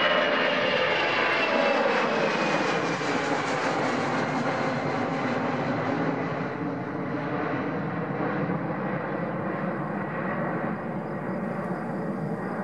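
Four PS-90A turbofans of an Ilyushin Il-76TD-90VD at takeoff power as the freighter passes overhead in its climb. It is loud jet-engine noise with a whine that falls in pitch as it goes by, then it fades slowly as the aircraft climbs away.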